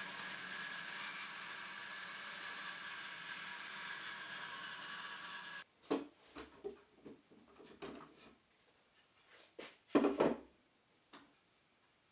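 Bandsaw cutting through a hardwood board, a steady whir with a faint hum, which cuts off suddenly after about five and a half seconds. Then come scattered knocks and clunks of parallel bar clamps being set and tightened on a glued wooden frame, the loudest about ten seconds in.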